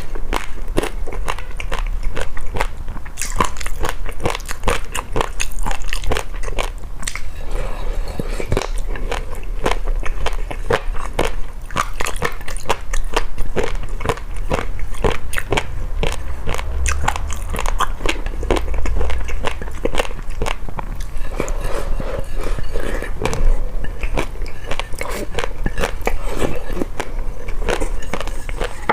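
A person eating close to the microphone: irregular crisp crunching bites and chewing of a crunchy noodle and jelly dessert, continuing throughout.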